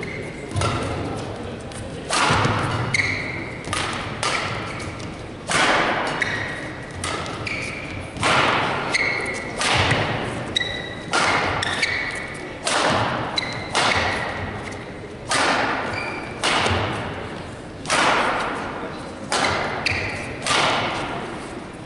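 A long badminton rally: rackets strike the shuttlecock about every one to one and a half seconds, each sharp hit ringing on in a large hall. Short squeaks of shoes on the court come between shots.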